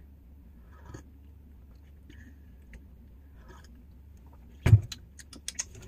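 Faint sips from a tea mug, then a sharp knock about three-quarters of the way through as a cup is set down on the counter, followed by a few light clicks and clinks.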